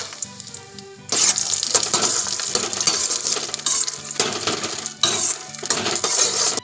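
Spatula stirring phool makhana (puffed lotus seeds) roasting in ghee in a steel kadai: a loud, continuous rattling and scraping of the light seeds against the metal pan with a light sizzle, starting about a second in.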